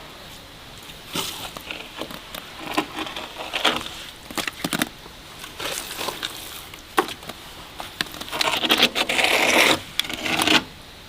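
Irregular light knocks and scrapes, with a longer scraping stretch near the end.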